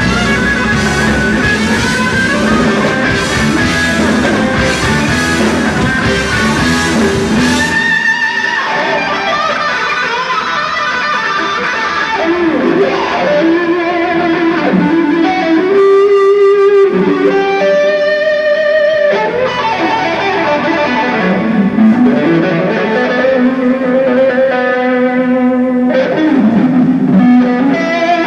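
Live boogie-rock band playing. About eight seconds in, the drums and bass drop out, leaving electric guitar playing held, bending notes.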